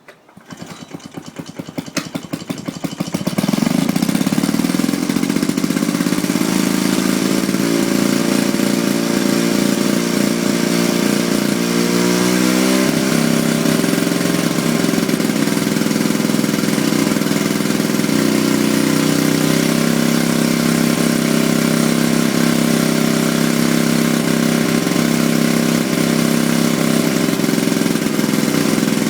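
Vintage Victa 18 rotary lawn mower's two-stroke engine starting: single firing strokes quicken over the first few seconds until it catches and runs steadily. Its speed shifts about twelve seconds in, then it settles again.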